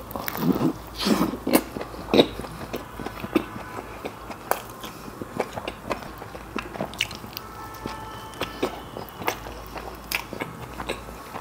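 A person biting into a chicken burger with an egg layer and chewing it, close to the microphone: a few louder bites in the first two seconds, then a steady run of wet mouth clicks and smacks as he chews.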